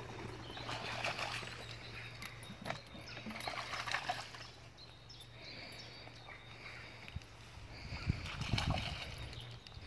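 Dogs splashing as they wade through a shallow stream, in bursts about a second, four seconds and eight seconds in, the last with a low rumble.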